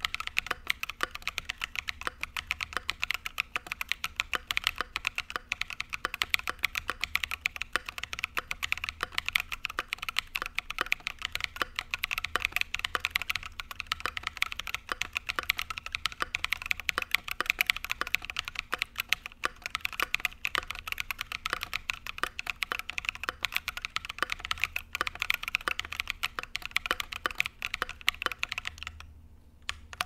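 Steady, fast typing on a mechanical keyboard fitted with Akko CS Lavender Purple tactile switches: a dense run of key clacks that stops about a second before the end.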